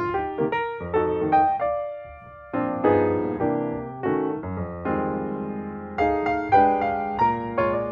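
Background piano music: a melody of struck notes that ring and fade, with a short lull about two seconds in.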